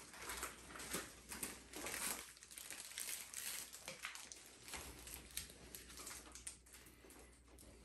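Clear plastic packaging crinkling faintly as it is handled, in irregular small crackles that thin out toward the end.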